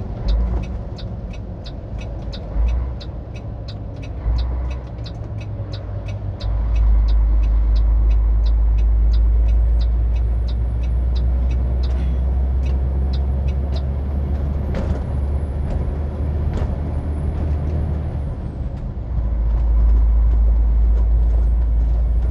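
A diesel truck engine and tyre noise on wet asphalt, heard from inside the cab as the truck runs down a wet mountain road. The deep engine drone gets louder about six seconds in and again near the end. A rapid regular ticking, about two to three a second, runs through the first half, and a faint high whine rises and falls in the middle.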